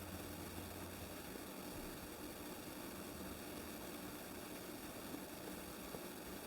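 Steady faint hiss of background noise with a few constant faint tones, and no distinct event except two small ticks near the end.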